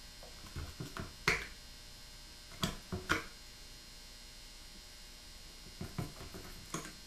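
Small hand carving tool cutting and scraping wood in a rifle stock's patchbox inlet, short clicks and scrapes in three bunches: about a second in, near three seconds, and near the end.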